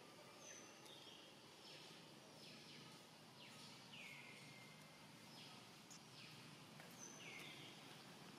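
Faint outdoor background with a small creature's repeated high calls, each dropping sharply in pitch, about one to two a second.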